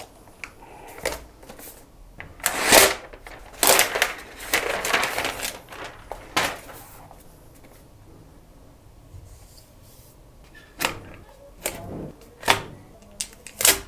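Apple laptop packaging being handled: paper and cardboard rustle and scrape in several bursts, then go quiet, followed by a few light clicks and taps near the end as a paper accessory tray is picked up.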